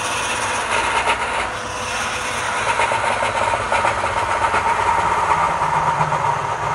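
Wood lathe running with a steady whine while a long hand-held turning tool cuts a spinning wooden workpiece, a continuous rasping scrape of the cut over the motor.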